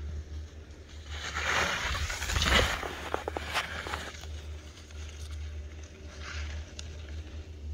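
Skis hissing through powder snow in a turn: the hiss swells about a second in, peaks near the middle, and is followed by a few sharp clicks. A weaker hiss comes later, over a low steady rumble.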